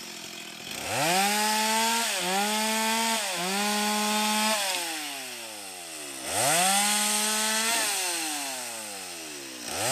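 Stihl MS 250 two-stroke chainsaw revved to full throttle and cutting into a felled sengon (albizia) log, dipping twice briefly under load before winding back down to idle. It revs up again about six seconds in, drops back, and revs once more near the end.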